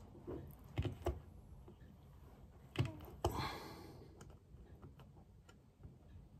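Small scattered clicks and taps of a metal pick and a rubber carburettor diaphragm being worked onto its piston. The loudest clicks come a little under three seconds in, followed by a short rubbing scrape.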